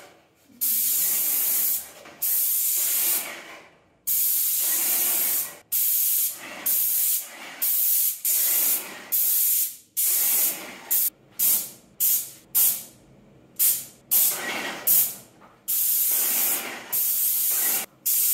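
Airless paint sprayer gun hissing in repeated bursts as the trigger is pulled and released, paint atomising at the tip with the pump pressure turned up. The bursts come shorter and quicker in the middle, then longer again toward the end.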